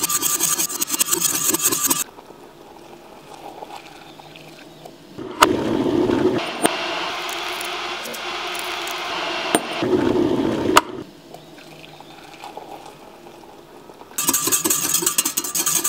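Wire whisk rattling fast against a glass measuring jug as a stock cube is whisked into boiling water, for about two seconds at the start and again near the end. In between, a click and then about five seconds of hot water poured into the jug, a steady rushing splash that ends with another click.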